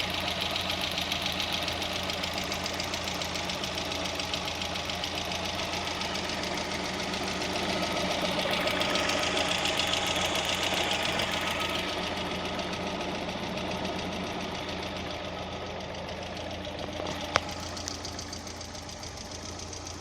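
VAZ 16-valve four-cylinder engine running with a rapid, steady ticking from the hydraulic lifters (valve lash compensators), the sign of noisy or worn lifters. A single sharp click comes near the end.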